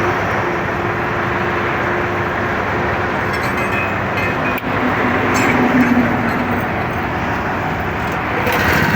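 Steady, loud noise of heavy road traffic passing close by on a highway.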